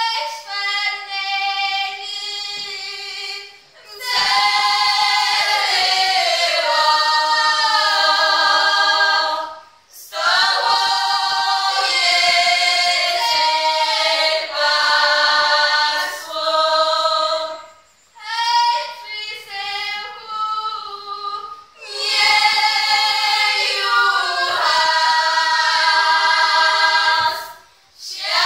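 A group of women singing unaccompanied in Polish highland (Podhale) folk style, in loud phrases a few seconds long with short breaks between them.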